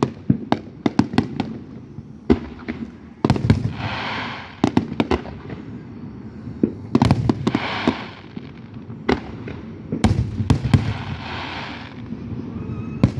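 Aerial fireworks bursting overhead: a rapid, irregular run of sharp bangs, with three longer spells of hiss between them.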